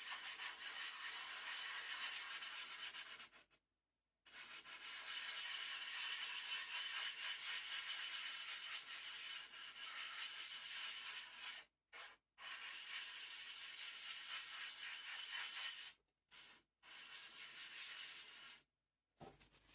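Aluminium-oxide sharpening stone being lapped flat on coarse 150-grit silicon-carbide powder with oil: a steady gritty grinding rub with several short breaks.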